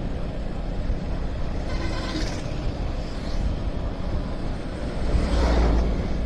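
Motorcycle running at road speed with a steady rush of wind and road noise, swelling louder about five seconds in.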